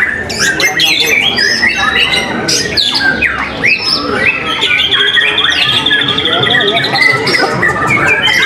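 Several caged white-rumped shamas (murai batu) singing at once: a dense tangle of overlapping whistles, chirps and fast glides. A long, rapid trill of repeated notes runs through the middle.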